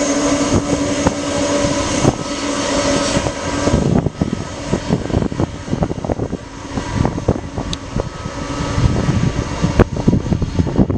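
Boeing 747 jet engines running loud: a steady whine over a roar, giving way after about four seconds to an uneven crackling rumble.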